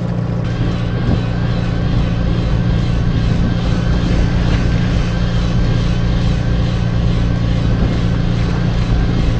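Fishing boat's engine running at a steady, loud drone, with a faint wavering whine above it from about half a second in.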